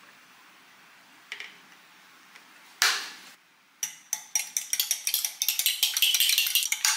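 Fork beating raw eggs in a glass measuring jug: rapid clinks of metal against glass that start about four seconds in, after a short scuffing noise about three seconds in.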